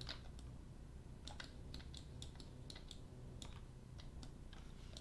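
Faint, irregular clicking of a computer keyboard and mouse in use, a few sharp clicks a second, over a low steady hum.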